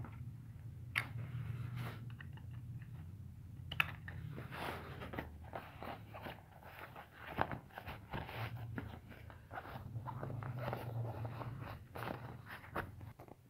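Stiff 600D polyester vest fabric rustling and crinkling as hands handle it, lifting pocket flaps and pulling at elastic straps, with frequent small scrapes and clicks. A steady low hum runs underneath.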